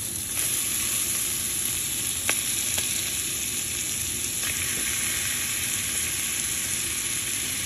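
Pork belly and beef frying in butter in a stainless steel wok: a steady sizzle that grows brighter about halfway through, with two light clicks as more beef slices go into the pan.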